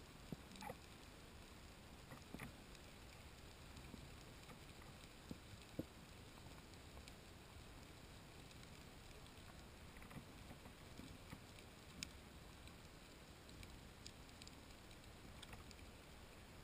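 Faint underwater ambience on a diving camera: a low, even hiss with scattered sharp clicks and ticks, the loudest just before six seconds in and at about twelve seconds.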